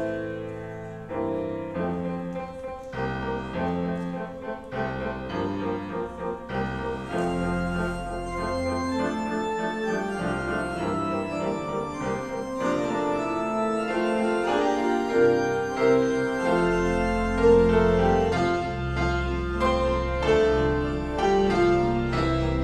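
Grand piano played with both hands: a continuous flowing line of notes over held bass notes, getting louder in the second half.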